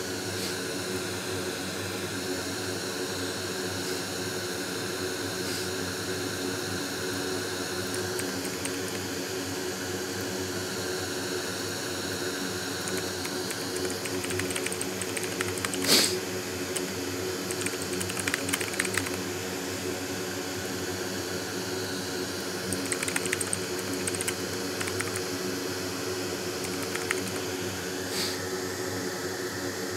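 Steady hum of a fume extractor fan on a repair bench. Over it come short runs of computer keyboard typing, with one sharper click about halfway through.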